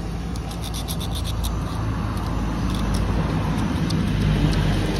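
A motor vehicle engine running with a steady low rumble that swells a little towards the end, with scattered light clicks over it.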